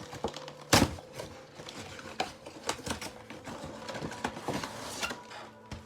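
Cardboard and plastic packaging of a trading-card collection box being torn and pulled open by hand: irregular crinkling, tearing and tapping, with one louder knock just under a second in.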